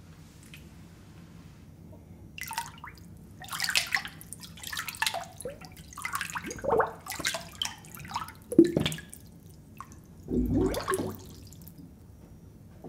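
Water splashing and dripping in an irregular run of short bursts, starting about two seconds in and stopping about a second before the end, with a few heavier splashes.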